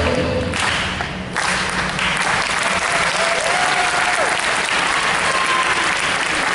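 Audience applauding at the end of a performance: the music cuts off about half a second in and steady clapping carries on.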